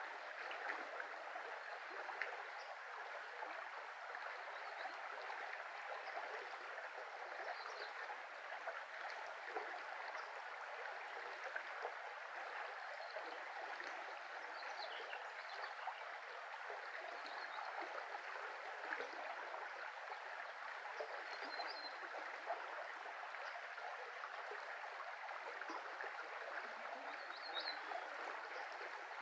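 Shallow brook flowing and babbling steadily over its bed. Faint short bird chirps come now and then.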